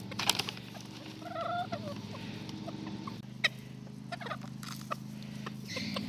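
Chickens clucking continuously in a low, steady chatter, with a few short higher calls about a second in and scattered sharp clicks.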